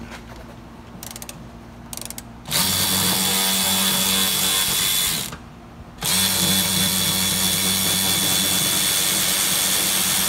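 Cordless impact wrench with a T50 Torx bit running on a car seat's rear mounting bolt to back it out. It runs for about three seconds, stops briefly, then runs again, with a steady whine; a few light clicks come just before the first run.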